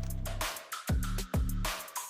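Background electronic music with a steady beat and deep, falling bass notes.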